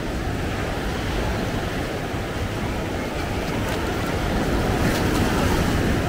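Ocean surf washing onto a sandy beach, swelling louder about four and a half seconds in as a wave breaks.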